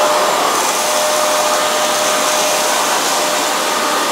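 Wet-and-dry vacuum cleaner motor running steadily with a constant whine, sucking up dirt.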